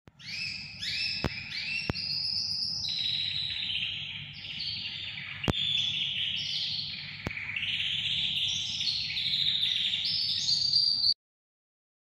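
Caged pet yellow songbird singing a long, unbroken song of rolling trills that step between higher and lower pitches, with a few sharp clicks. The song cuts off suddenly near the end.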